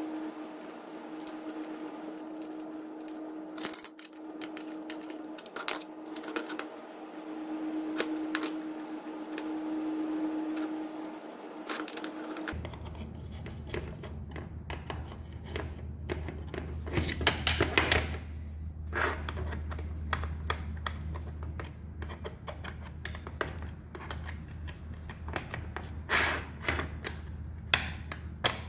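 Small hard parts and hand tools clicking and tapping at a workbench, irregularly, over a steady hum. About twelve seconds in, the hum changes abruptly to a lower drone.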